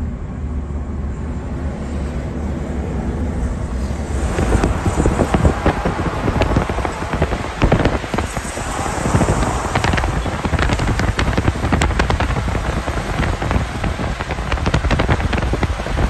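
Low road and engine rumble from a moving car. About four seconds in, a louder crackling rush full of small clicks and pops joins it and runs on.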